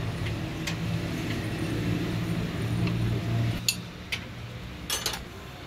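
A steady low hum that stops about three and a half seconds in, then a few sharp metallic clinks, with a quick cluster near the end, as a steel spanner is handled against a diesel fuel feed pump held in a steel vise.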